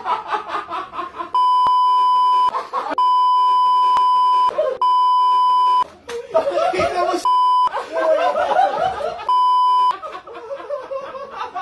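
Five censor bleeps, a steady beep tone each lasting about half a second to a second and a half, cut in over men laughing and talking excitedly.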